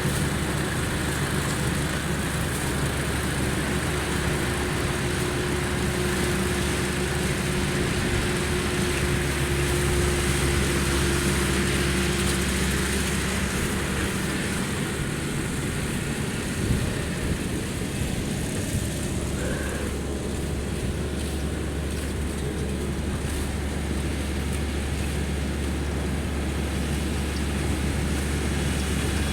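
Yanmar GC333 combine harvester running steadily, its engine and threshing drive making an even mechanical drone, with a faint steady whine through the first twelve seconds or so.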